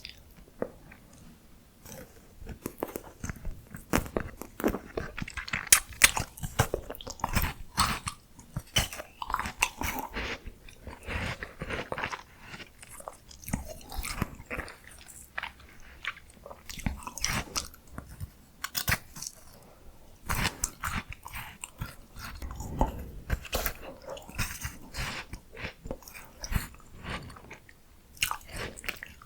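Close-miked eating of miniature ice cream treats: bites and crunchy chewing, with many sharp crunches, starting about two seconds in.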